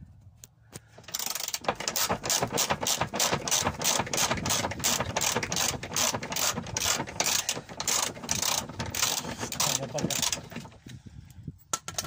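Socket ratchet clicking rapidly and steadily, about five clicks a second, as it is worked back and forth to unscrew a long 19 mm bolt from a spare wheel carrier bracket; the clicking stops shortly before the end as the bolt comes free.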